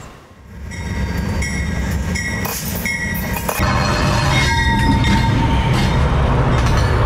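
GE P42DC diesel-electric locomotive approaching and rolling directly over a camera between the rails: a low rumble of engine and wheels grows louder, and it gets heavier from about three and a half seconds in as the locomotive passes overhead. High ringing tones come and go above the rumble.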